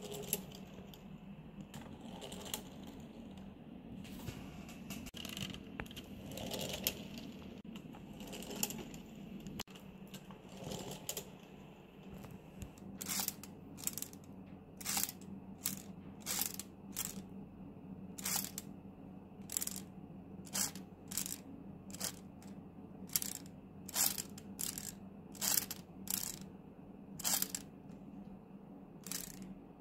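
A plastic LEGO Technic car being handled, with soft rubbing and knocking of the pieces, then, from a little under halfway, a run of sharp clicks from its mechanism, one or two a second, as its large wheel is turned by hand.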